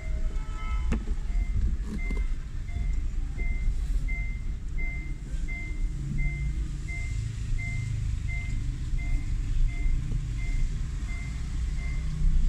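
Car's electronic warning chime beeping steadily, about two short beeps a second, inside the moving car's cabin, over the low rumble of the engine and road. There is a single knock about a second in.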